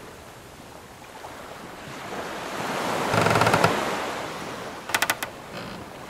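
Sea waves washing around a wooden sailing ship, swelling to a peak about halfway through and then ebbing, with a low creak of the hull timbers at the peak. A quick run of four or five sharp wooden creaking clicks comes near the end as the ship rocks.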